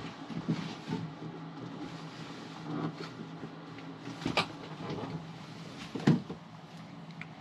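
A few short knocks and clunks from hands working in a boat's engine compartment, the loudest about six seconds in, over a steady low hum.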